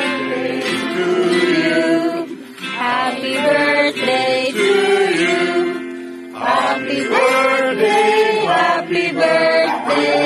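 A song sung with musical accompaniment: held notes, with short pauses between phrases about two and six seconds in.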